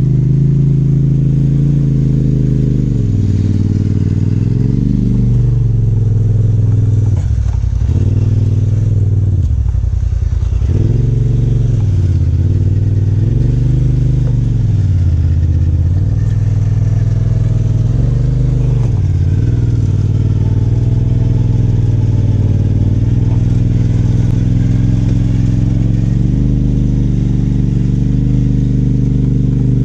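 Side-by-side UTV engine running steadily near idle, its pitch sagging and recovering several times during a winch pull up a steep, muddy climb.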